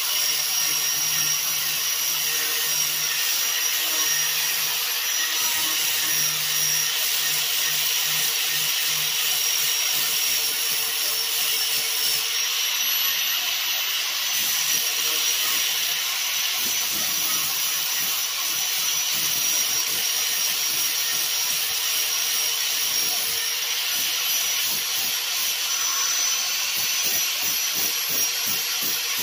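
Electric angle grinder with an 80-grit flap disc running steadily while sanding fiberglass body filler, a constant high motor whine over the rasp of the disc.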